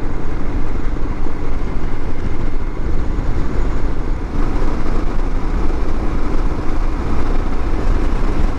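Royal Enfield Himalayan's single-cylinder engine running steadily at road speed, with wind rushing over the microphone.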